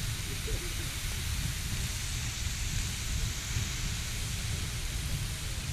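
Riverside Geyser erupting: a steady rushing hiss of the steam-and-water column, with a low rumble beneath it.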